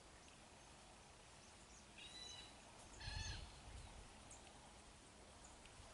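Near silence outdoors, broken by two faint, short animal calls, one about two seconds in and a slightly louder one about a second later.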